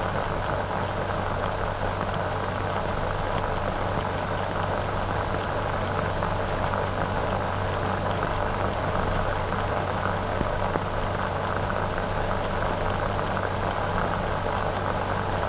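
Steady hiss with a light crackle, the surface noise of an old 1940 optical film soundtrack.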